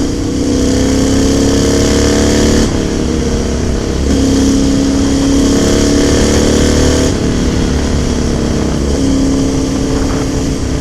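1998 Honda Shadow 600's V-twin engine accelerating through the gears. Its pitch rises, drops at a gear change about two and a half seconds in, rises again, and drops at another shift about seven seconds in.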